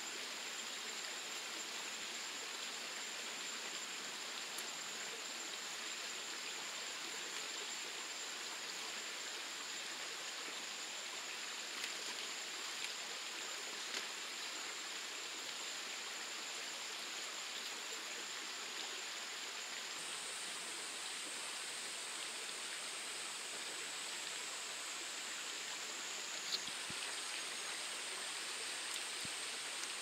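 Mountain stream rushing steadily, with a few light clicks near the end and middle.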